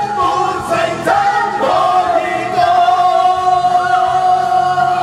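Karaoke singing of a Chinese pop song over its backing track, with one long held note starting about a second in.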